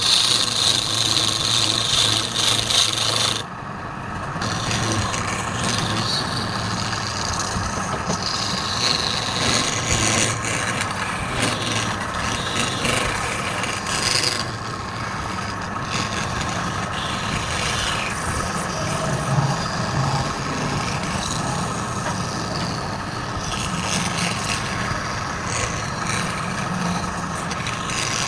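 Wood lathe running while a tool or abrasive works the spinning wood: a continuous rasping scrape over a steady motor whine. The scraping eases briefly about three seconds in.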